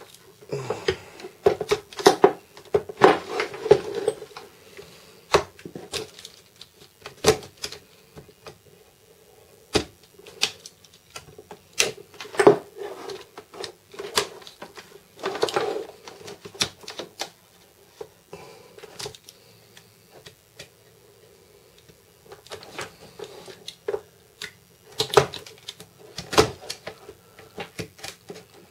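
A knife cutting and scraping at the edge of a hole in a hollow plastic box, in irregular sharp clicks and short scrapes with quieter pauses. The hole is being widened by hand so that a rectangular switch will fit.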